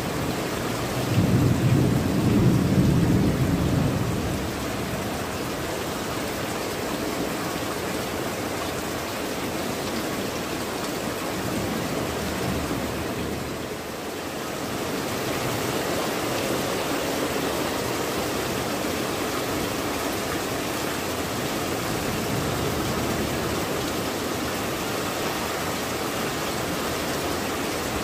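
Steady heavy rain falling on clay tile roofs and foliage. About a second in, a low rumble swells over the rain for about three seconds, then fades.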